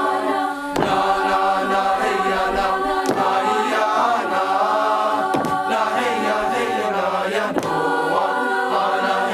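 A choir singing a chant-like song on wordless vocables such as "na hey ya na", in long held phrases that break and begin again about every two seconds.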